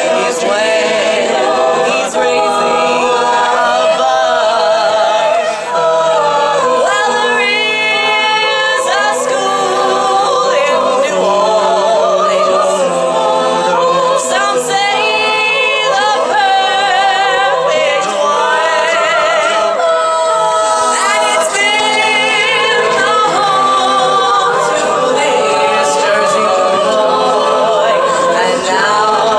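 A cappella vocal group singing in close harmony, several voices holding chords with wavering, vibrato-laden notes and no instruments.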